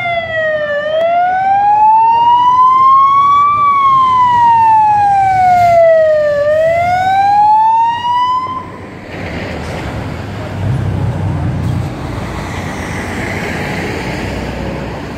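Fire engine siren wailing, sliding slowly up and down in pitch, about three seconds each way; it stops about nine seconds in, leaving the low rumble of heavy trucks' engines going past.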